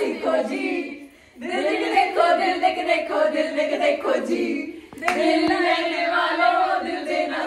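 A group of young women singing a song together in unison, in three phrases with short breaks between them about a second and five seconds in.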